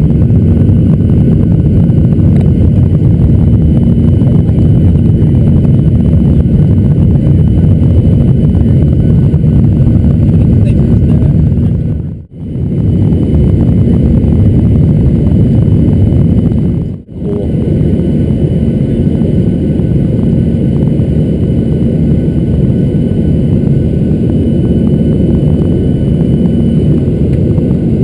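Steady, loud cabin noise of a jet airliner in flight: engine drone and rushing air heard from a window seat, with a constant hum. The sound drops out briefly twice, about twelve and seventeen seconds in.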